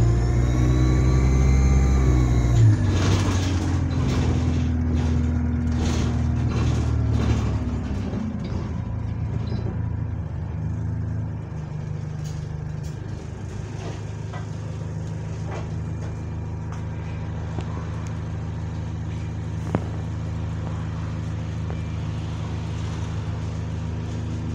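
Diesel bus engine heard from inside the saloon, pulling hard with a high whistle from a leaking turbo, then backing off suddenly about three seconds in. As the bus slows the engine note falls, with a run of clicks and rattles, and it settles to a steady idle for the second half.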